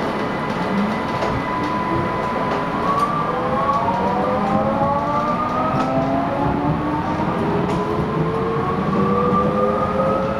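Vienna U-Bahn Type V metro train pulling away from a station, heard from inside the car: a steady running rumble with the whine of the electric traction motors, several tones climbing together in pitch as the train accelerates.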